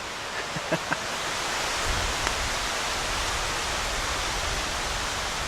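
Wind hissing through the trees, a steady rushing that swells about two seconds in, when a low rumble of wind on the microphone joins it.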